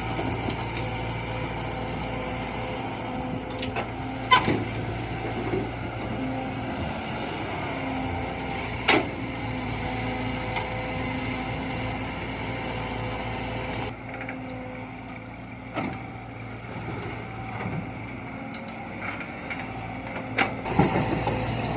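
Diesel engine of heavy construction machinery running steadily, with a few sharp knocks. The engine gets quieter about fourteen seconds in.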